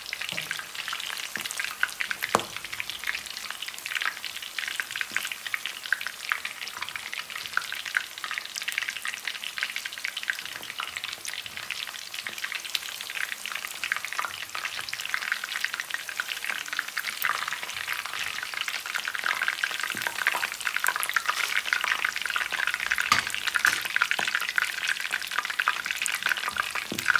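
Pork leg deep-frying in hot oil for crispy pata: continuous sizzling and crackling, with scattered sharp ticks, growing a little louder after about twenty seconds.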